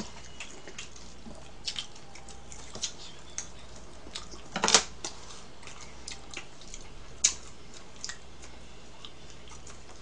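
Eating sounds: scattered light clicks and taps of chopsticks against a bowl while chewing, with one louder clatter a little before halfway and another sharp click a couple of seconds later.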